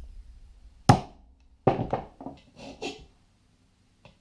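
Hammer striking a metal punch held on a steel bottle cap over a wooden block, knocking a hole for a pop rivet: two sharp blows just under a second apart, then a few lighter knocks.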